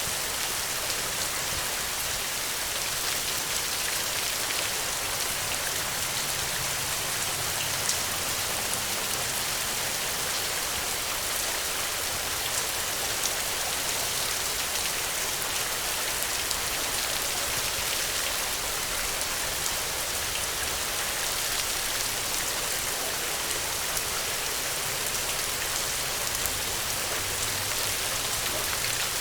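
Steady rain falling on the ground: an even hiss with scattered individual drops pattering through it.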